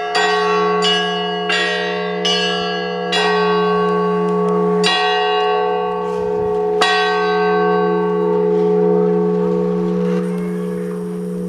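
Russian Orthodox church bells ringing: smaller bells struck about once a second, then more slowly, over a steady low bell hum. The last strike comes about seven seconds in and the bells ring out.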